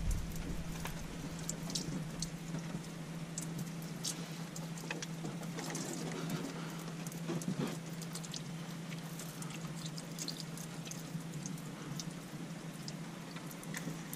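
A stream of water spattering onto a car engine's belt pulleys and hoses, with scattered drips and splashes, rinsing dish-detergent foam off oily engine parts. A steady low hum runs underneath.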